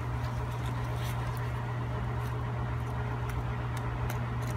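A steady low machine hum, with faint scattered clicks and scrapes of a small knife cutting the membrane as the hide is peeled back off a wolf's foot.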